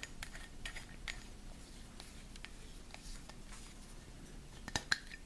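Faint clicks and light clinks of a glass perfume bottle and its spray atomizer being handled and fitted together at the neck, with two sharper clicks near the end.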